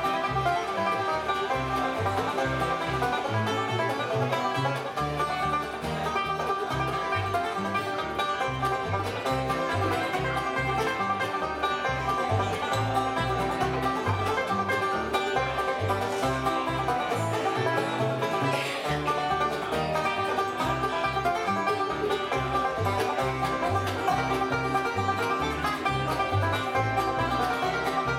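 A live bluegrass band plays, with banjo and guitar picking over steady, evenly pulsed bass notes.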